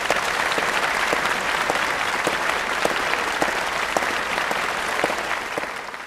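Concert audience applauding at the end of a piece, a steady dense clapping that starts to die away near the end.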